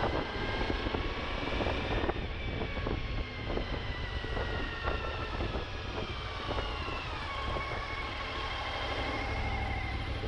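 Suzuki V-Strom's V-twin engine running under way on a rough track, its pitch climbing slightly and then easing off about seven seconds in, with scattered knocks and clatter over the engine.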